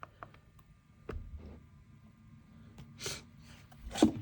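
A person sniffing in sharply through the nose twice, near the end, after a few light clicks and taps of handling.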